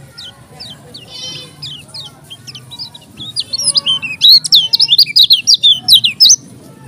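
Kecial kuning, a small yellow white-eye, singing a fast run of sharp, high sweeping chirps with a short trill, building to a loud, dense burst in the second half and breaking off suddenly near the end.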